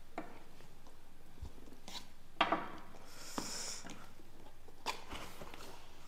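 A cardboard shipping box being handled and opened: a few soft knocks and taps, the loudest about two and a half seconds in, and a brief scraping, rustling hiss just after three seconds as the taped lid comes free.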